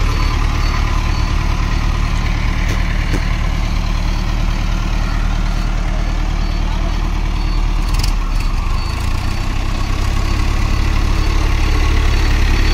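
Mahindra tractor's diesel engine running steadily at low revs, with a short click about eight seconds in.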